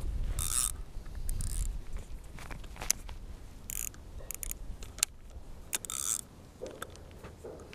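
Handling noise close to a head-mounted microphone: short rustles and scattered clicks as a fishing rod and reel are readied in hand and clothing brushes past, with a low rumble in the first couple of seconds.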